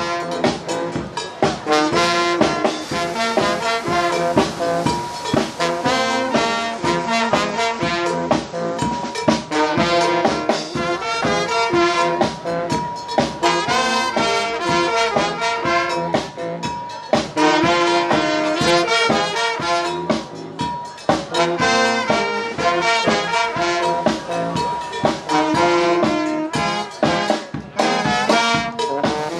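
Street brass band playing swing-style music with a steady beat: saxophones and brass over a sousaphone bass line.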